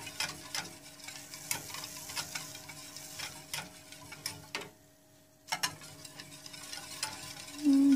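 Wire whisk tapping and scraping against the inside of a stainless steel saucepan, stirring a thickening milk and starch chocolate pudding mix. It makes about three light ticks a second, with a short break about five seconds in before the whisking resumes.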